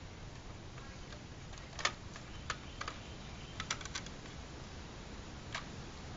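Light, irregular clicks and taps of hard plastic model-kit walls being handled and fitted together, the loudest a quick cluster about two seconds in, a few more around four seconds, and a last one near the end.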